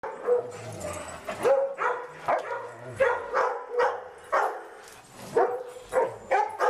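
Large dogs barking at play, about a dozen sharp barks at uneven intervals.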